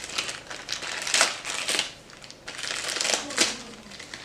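Packaging crinkling and rustling in irregular handfuls as new AR buffer-tube parts are taken out, with a few sharper crackles.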